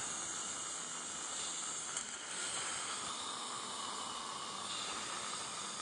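A steady hiss, with a faint click about two seconds in.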